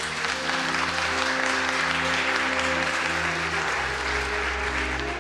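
Crowd applauding steadily, over a bed of slow instrumental music with held chords.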